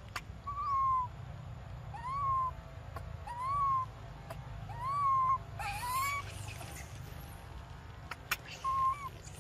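Young long-tailed macaque crying: about six high, arched whimpers, each rising then falling and lasting about half a second, coming every second or so.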